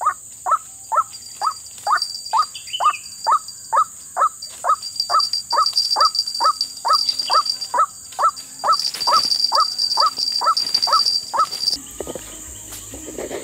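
Monotonous repeated calls of a white-breasted waterhen, short sharp notes about two a second, over a steady high insect buzz. The calls stop abruptly about twelve seconds in.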